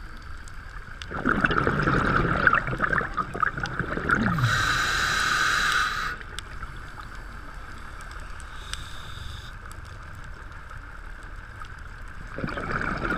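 Scuba diver's regulator breathing underwater: exhaled bubbles gurgle for about three seconds, then a hiss as a breath is drawn through the regulator. A fresh burst of exhaust bubbles starts near the end.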